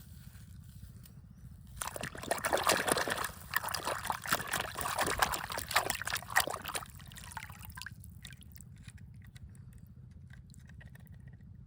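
Water sloshing and splashing for about five seconds, starting about two seconds in, then a few faint scattered drips and ticks.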